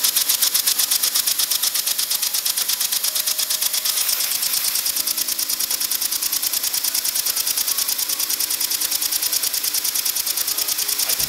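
3D-printed single-cylinder compressed-air engine running fast on a blow gun at 60 psi: a steady hiss of air with a rapid, even puffing clatter of the exhaust and plastic parts.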